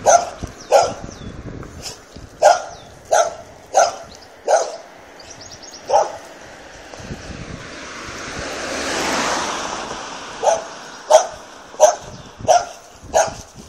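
A dog barking repeatedly, one bark about every 0.7 s, in two runs separated by a pause of several seconds. In the pause a rushing noise swells and fades.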